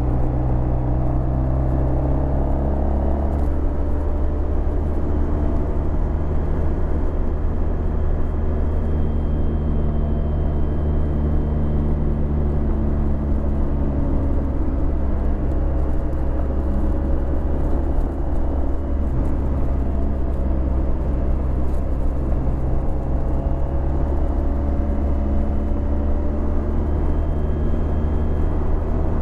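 Honda VFR1200X Crosstourer's V4 engine running through an Akrapovic titanium exhaust while riding at a fairly steady pace, its pitch drifting only a little, with one brief dip about two-thirds of the way in.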